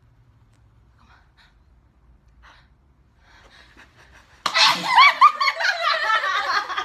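A person sneezes, a sudden loud burst about four and a half seconds in, followed by a couple of seconds of voices.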